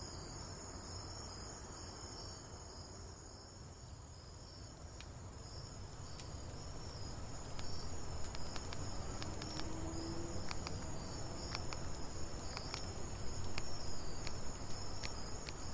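Crickets chirping in a steady, high, pulsing trill, with scattered sharp clicks joining in from about seven seconds in.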